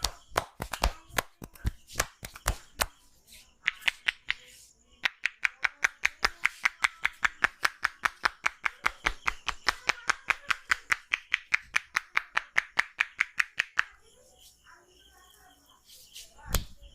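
A barber's hands tapping and slapping a client's head during a massage. A few irregular slaps open it, then comes a long, even run of quick claps at about five a second. After a short pause there is one heavy slap near the end.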